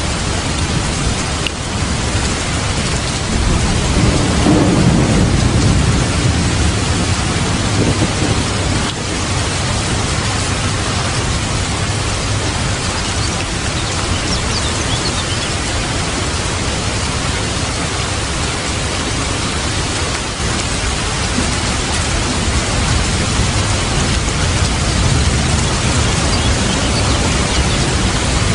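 Steady, heavy rain hiss with a low rumble of thunder swelling about four to eight seconds in.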